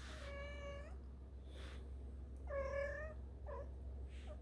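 Four-and-a-half-week-old kitten mewing: two high, even-pitched mews about two seconds apart, followed by a brief short squeak just after the second.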